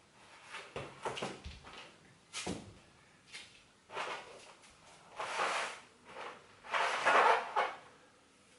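A kettlebell and slider pad knocking and shuffling on a tiled floor as they are set down and moved, then two longer bursts of hiss about five and seven seconds in.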